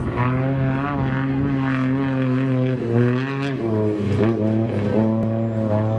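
Trophy truck engine running hard at high revs in a steady drone, its pitch dropping in steps about three and four seconds in.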